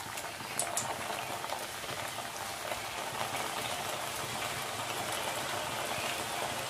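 Raw shankha pitha dough in hot oil in a metal wok, sizzling steadily as it deep-fries; the sizzle starts as the dough goes in.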